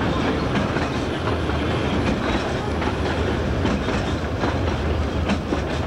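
Ffestiniog Railway narrow-gauge train running, heard from inside a carriage: a steady rumble of the wheels on the track, with scattered clicks as they pass over rail joints.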